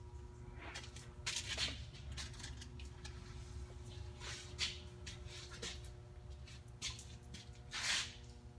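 Faint steady low hum with a few brief rustling noises, about a second in, around four and a half seconds, and near the end.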